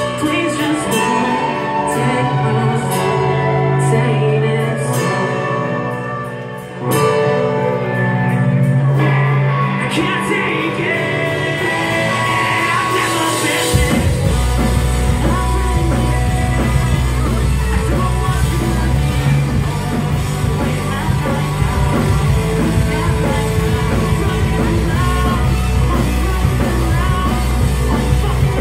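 Live rock band playing with sung and shouted vocals over electric guitars and drums. About fourteen seconds in, heavy bass and full drums come in and the sound grows thick and dense.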